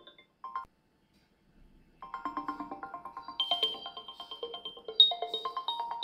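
Background music: a simple melody of quick, short notes. It breaks off just after the start, leaving near silence, and picks up again about two seconds in.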